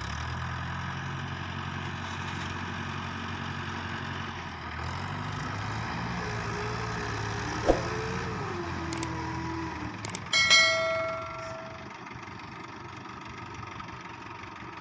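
Mahindra 575 DI tractor diesel engines running steadily while one tractor tows another out of the mud. About ten seconds in, a sharp metallic clang rings out and fades over about a second.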